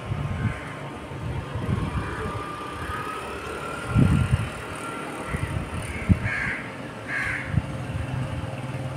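Outdoor ambience: wind buffeting the microphone in low gusts, the strongest about four seconds in, a faint, slightly rising tone through the middle, and crows cawing twice near the end.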